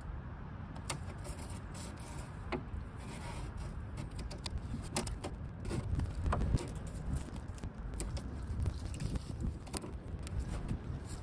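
Handling noise: scattered light clicks, knocks and rustles as a hard motorcycle saddlebag is moved and a strip of adhesive Velcro tape is handled and cut with scissors.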